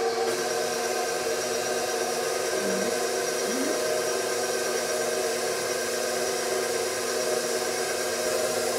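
KitchenAid stand mixer's motor driving its meat grinder attachment: a steady whine made of several tones.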